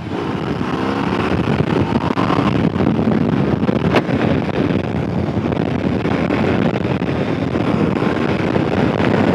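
BMW R 18 Bagger's big boxer twin engine pulling hard under hard acceleration, its pitch climbing with the revs, under heavy wind buffeting on the microphone. A brief click about four seconds in.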